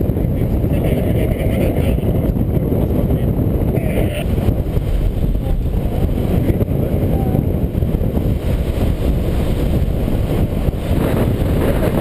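Wind rushing over the camera's microphone in flight under a tandem paraglider: a steady, loud low rumble that does not let up.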